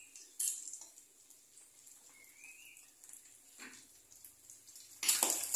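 Mostly quiet, with a sharp clatter about half a second in and a smaller clink later. Near the end a metal spatula scrapes and clatters loudly in a frying pan on the gas stove.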